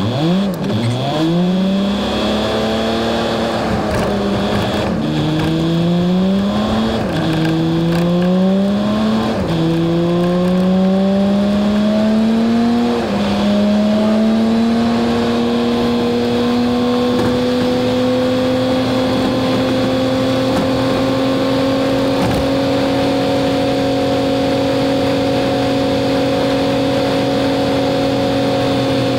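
Semi-truck diesel engine heard from inside the cab, pulling up through the gears: its pitch climbs and drops back at each of several upshifts. After about 14 seconds it settles into a steady cruise.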